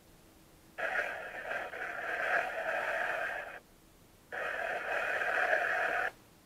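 Two bursts of radio-like hiss from a small speaker, each cutting in and out abruptly: the first lasts about three seconds, the second about two.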